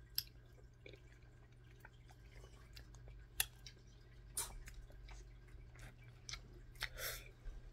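Faint eating sounds of someone gnawing and chewing pork tail: a scattering of short wet mouth clicks and smacks, the sharpest about three and a half seconds in.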